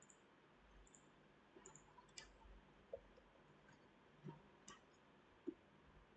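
Faint clicks of a computer mouse and keyboard, a handful scattered through near silence.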